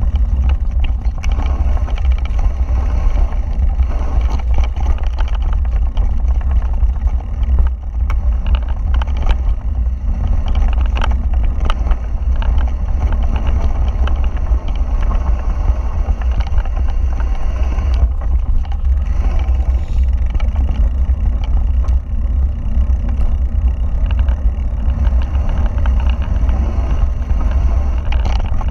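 Wind rumbling steadily across an action camera's microphone on a fast mountain-bike descent of a dirt trail, with frequent rattles and knocks from the bike jolting over rough ground.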